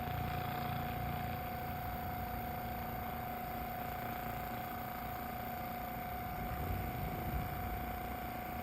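Therabody percussive massage gun running with a steady motor hum.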